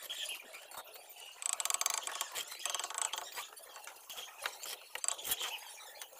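Bricklaying sounds: a gritty scrape from about one and a half to three seconds in, then scattered light knocks and clinks as a hollow clay brick is set into wet mortar.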